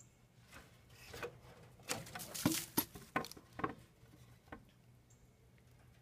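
A wooden board being handled against a wooden rabbit hutch frame: a quick cluster of light knocks and scrapes about two to three and a half seconds in, then a few faint ticks.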